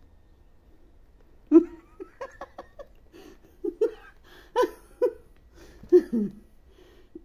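A person giggling in a string of short laughs, starting about a second and a half in.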